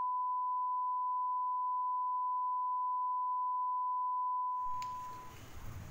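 A TV test-card tone: one pure, steady beep held at a single pitch, which stops about four and a half seconds in. Faint room noise and a light click follow it.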